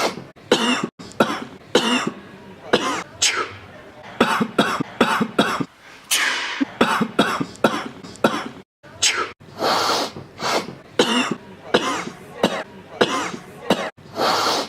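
A person coughing and sneezing over and over, many short, sharp bursts about two a second, with a few sudden breaks between them.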